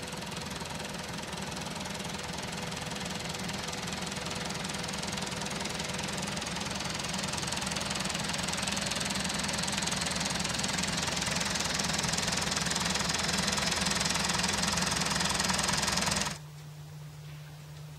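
Farm tractor engine running steadily while reversing a boat trailer down a ramp, growing louder as it comes closer. About sixteen seconds in the sound drops abruptly to a quieter low, steady hum.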